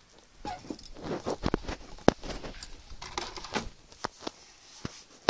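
Small plastic model-kit parts being handled: scattered light clicks and taps with some rustling, and one sharper click about two seconds in.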